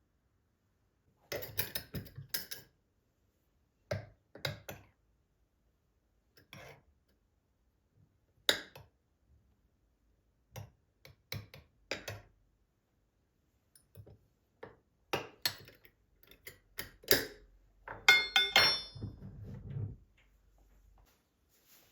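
Objects being handled: a series of short clicks and knocks in loose clusters, busier and louder toward the end, with a brief ringing clink near the end.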